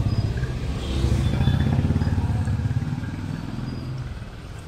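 A motorcycle engine running close by as it passes, then fading away about three seconds in.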